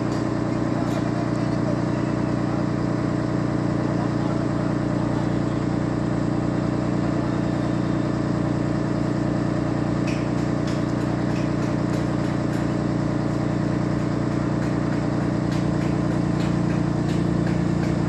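Mobile crane's diesel engine running steadily at a constant speed, growing slightly louder near the end.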